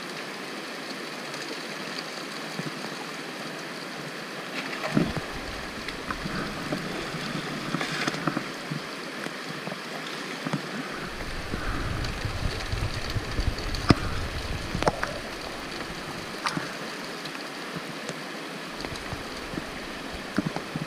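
Creek water running steadily over stones, with a few sharp knocks and scrapes of a shovel and stones being worked in the shallow gravel, and low rumbling water movement through the middle stretch.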